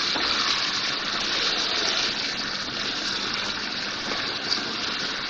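Mutton, yogurt and spice masala sizzling steadily in hot oil in a nonstick wok as it is stirred with a spatula over a medium flame. This is the bhuna stage, frying the masala down.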